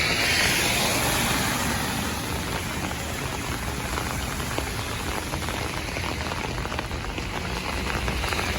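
Heavy rain falling on an open umbrella: a dense, steady hiss of many small drop ticks, with a low rumble underneath.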